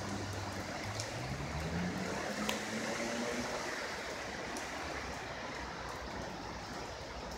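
Rain runoff rushing steadily, with a vehicle engine rising in pitch over the first few seconds before fading out.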